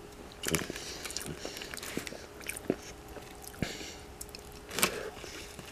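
A man chewing a mouthful of chili cheese tater tots, with scattered small clicks through the chewing.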